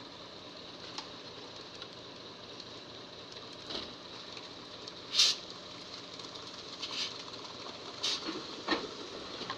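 Concrete mixer truck running steadily during a concrete pour, with a few short, sharp scraping noises, the loudest about five seconds in.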